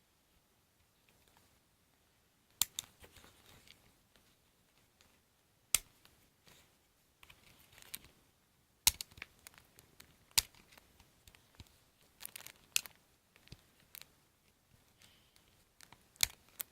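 Hands handling small plastic parts and packaging: irregular sharp clicks and snaps, about ten in all, with soft rustling and crinkling between them.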